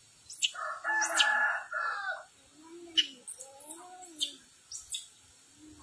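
Birds calling: one long, harsh call begins about a second in, followed by shorter, lower calls that rise and fall and a few brief high chirps.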